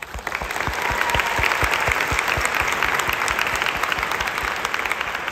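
Audience applause that starts suddenly, a dense patter of many hands clapping, with a steady beat of low thumps about five a second running through it.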